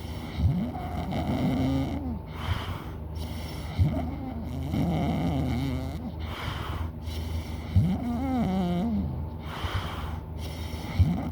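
A person snoring loudly in a steady rhythm, about one breath every three and a half seconds. Each breath is a wavering snore followed by a breathy rush of air, three times in all.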